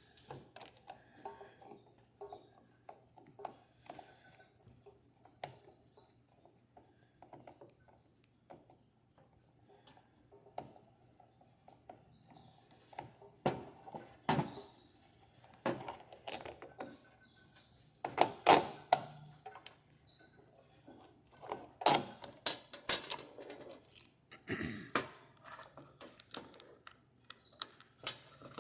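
Hard plastic foot-pedal switch being taken apart by hand: scattered clicks and light knocks of parts and screws, growing into louder clatter and knocks about halfway through.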